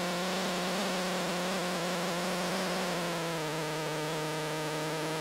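Steady electrical buzz on one unchanging pitch over constant hiss, from a defective camcorder microphone; no clear engine sound comes through.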